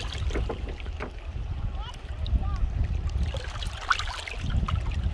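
Wind buffeting the microphone, a gusty low rumble, over gentle lake water lapping on a pebble shore, with faint voices in the background.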